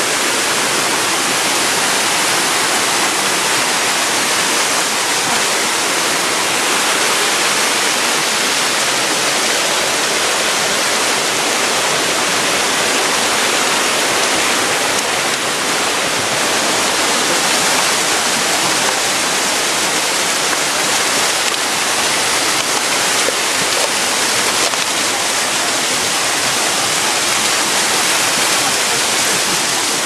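Mountain stream cascading over rocks, a steady, even rush of water.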